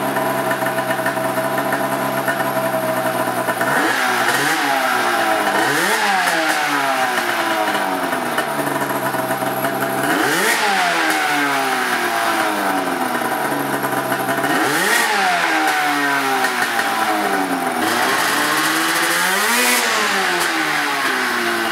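An 800cc two-stroke snowmobile engine, swapped into a Honda Odyssey buggy, idling steadily and then revved up and back down about five times. It drives the raised rear wheels, and each rev rises and falls in pitch.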